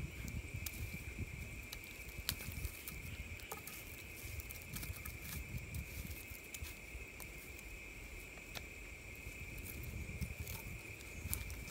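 Wood campfire crackling with scattered sharp pops as burning sticks are pushed about, over a steady high-pitched insect drone.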